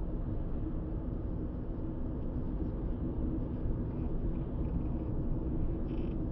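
Car travelling steadily along an open road, heard from inside: a steady low rumble of engine and tyre noise.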